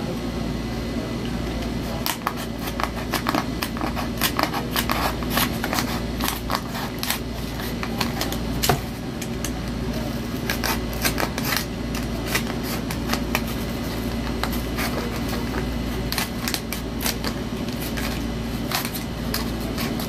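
Box-cutter knife cutting and scoring corrugated cardboard: irregular clicks and scratchy scrapes, over a steady low hum.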